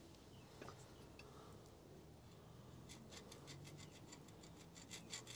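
Near silence. There are a couple of faint metallic clicks early, then a run of quick faint ticks and taps in the second half, as hands shift a steel castor correction plate against the front axle bracket.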